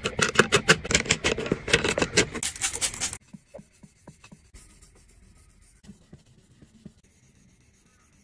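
Utility blade being sharpened on a whetstone: a fast run of scratchy strokes for about three seconds, cutting off abruptly, then only faint, occasional light scrapes.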